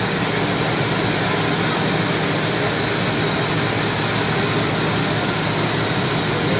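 Helicopter turbine engine and rotor running steadily, a continuous loud rushing noise with a faint high whine.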